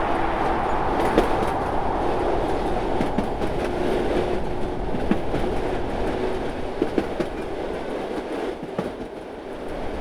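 Train running on the rails: a steady rumble with scattered sharp clicks and knocks from the wheels, easing briefly near the end.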